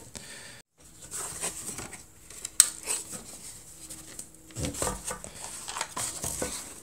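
Small metal nuts and bolts clinking and clicking against each other and the plywood pieces as a bolted wooden keyboard case is taken apart. There is one sharp click about two and a half seconds in.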